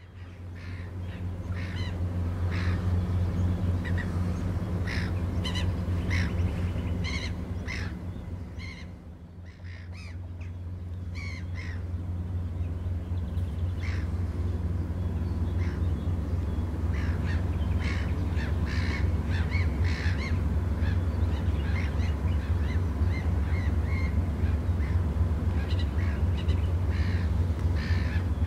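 Crows cawing again and again over a steady low engine drone from a tug's diesel. The drone is the loudest sound. It dips briefly about nine seconds in, and the cawing thins out there too.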